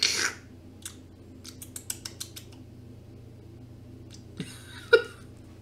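A man's breathy burst of laughter, then a run of small sharp clicks, and a short laughing yelp near the end.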